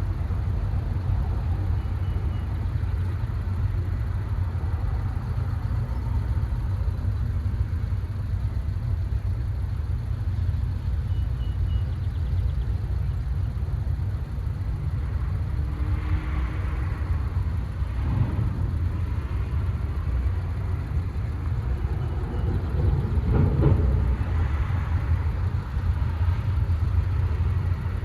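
Steady low rumble of road traffic, swelling briefly about two-thirds of the way through.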